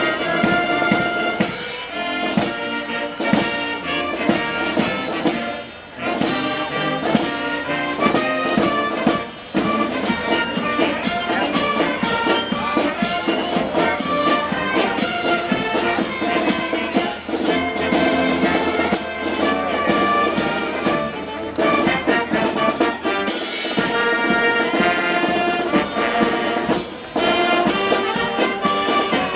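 A cadet concert band plays a tune: trumpets, sousaphone, saxophones and clarinet over a steady beat on snare and bass drums.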